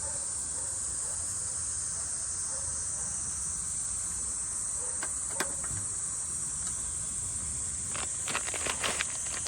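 Steady, high-pitched chorus of insects, with a single click about halfway through and a quick run of small clicks or knocks near the end.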